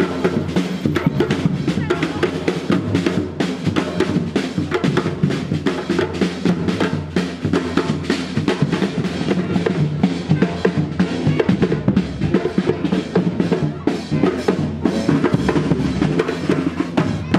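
A group of drummers playing a fast, continuous beat of bass and snare drums.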